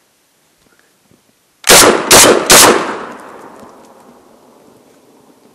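Panzer BP-12 semi-automatic 12-gauge bullpup shotgun firing three quick shots about half a second apart, starting nearly two seconds in, with the reports fading away over the next couple of seconds. It is shooting light number 7 steel shot and cycling each round without a hitch.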